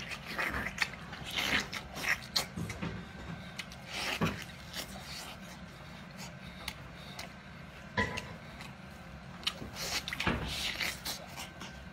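Mouth sounds of eating: chewing and lip-smacking while gnawing meat off a large braised bone, heard as irregular short wet clicks with a few louder smacks.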